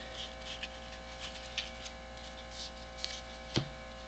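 Faint swishes of trading cards sliding over one another as a stack is flipped through, with one sharp tap about three and a half seconds in, over a steady electrical hum.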